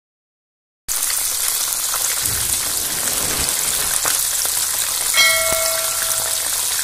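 Whole bata fish sizzling as they fry in hot vegetable oil: a steady hiss that starts about a second in, after a moment of silence. A short bell-like chime rings over it about five seconds in.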